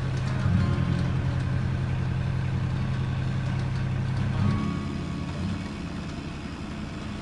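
Caterpillar mini excavator's diesel engine running steadily as the machine tracks along a gravel road. The engine sound drops away about four and a half seconds in.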